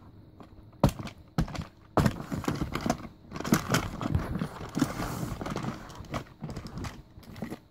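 Hard plastic toy puppy being handled and moved about, giving a few sharp knocks followed by irregular clacking and rustling.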